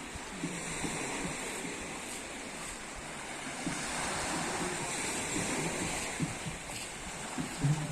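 Sea surf washing onto a beach, a steady rush of waves that swells louder about halfway through.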